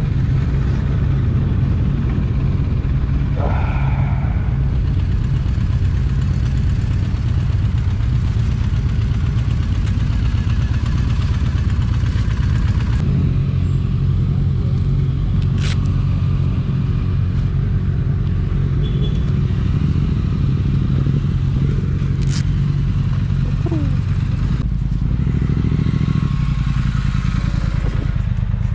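Triumph motorcycle engine running at idle and low speed, a steady low rumble. There are two sharp clicks partway through.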